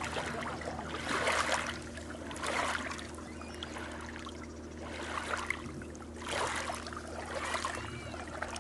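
Small waves lapping onto a pebbly shore, washing in and fading about five times at irregular intervals, over a steady low hum.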